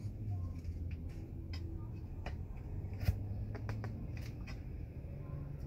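Light clicks and taps of hands fitting the top rail of a Humvee X-door window frame onto the window panel, with one sharper knock about three seconds in, over a low steady hum.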